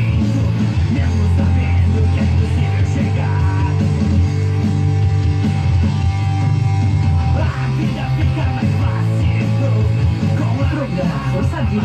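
Rock music playing loudly and steadily, with heavy bass and guitars and some shouted singing.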